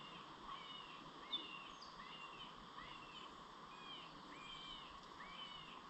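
Faint bush ambience: a bird's short chirping call repeated steadily, roughly every two-thirds of a second, over a soft steady background hiss, with one brief sharper note about a second in.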